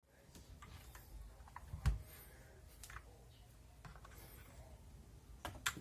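Scattered single clicks and light knocks, with a dull thump about two seconds in and two sharper clicks near the end.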